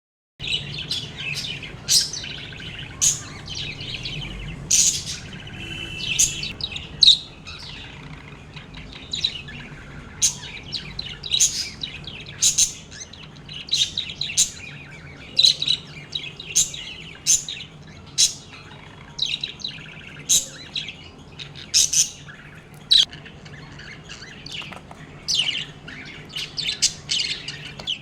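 Budgerigars chirping: short, sharp high chirps and chatter, about one or two a second, over a faint steady low hum.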